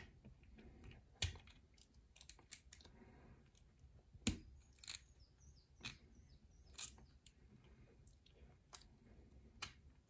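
Scattered sharp metal clicks and faint scraping as a tool works at a small brass padlock, prying at its retaining clip without a proper clip remover to take the lock apart. The loudest click comes a little past four seconds in.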